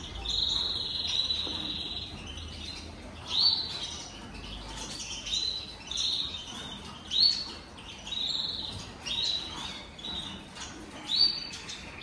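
Small caged finches chirping. A held call comes first, then a string of short, bright chirps repeating about once or twice a second.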